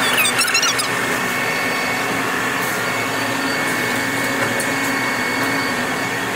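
Steady, loud din of blow-molding machinery and its overhead exhaust fans in a workshop, a constant drone with a few steady whining tones. A few short high squeaks come in the first second.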